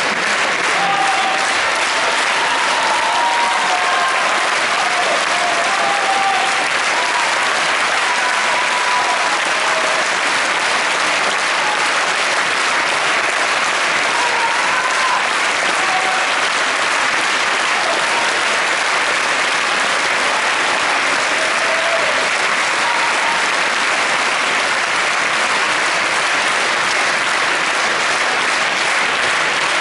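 A large theatre audience applauding steadily, a dense, even clapping that holds at one level, with a few short calls from the crowd over it.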